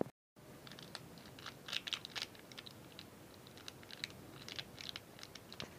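Plastic seasoning sachet being handled and emptied over a cooking pot: a run of irregular small crackles and clicks.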